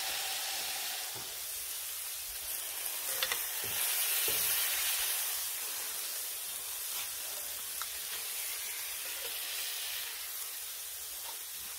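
Ground-beef smash burger patties sizzling steadily on a hot Blackstone flat-top griddle, with a few faint clicks.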